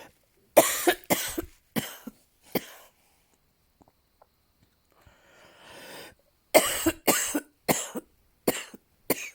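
A person coughing in two fits, each a quick run of about five or six harsh coughs. Between them is a pause and a breath drawn in before the second fit.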